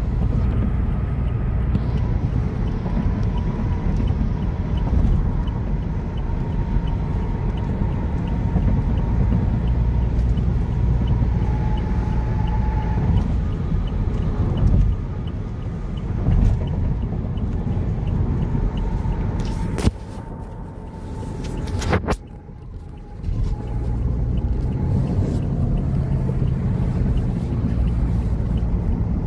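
Steady low road and engine rumble inside a Toyota Kijang Innova Reborn cabin while it is driven. Two sharp clicks come about twenty and twenty-two seconds in, and the rumble dips briefly around them.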